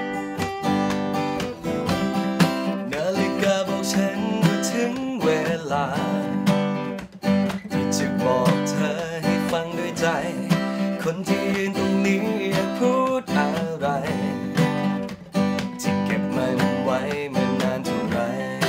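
Two acoustic guitars playing together live, one strumming chords and the other picking a lead line over them, in a steady pop-rock rhythm.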